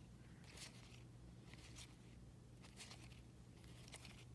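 Near silence: a few faint, brief rustles of trading cards being handled, about once a second, over a low steady hum.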